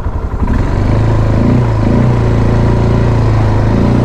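The 176 cc engine of a GA200 ATV running under throttle as it is ridden, rising in level about half a second in and then holding steady.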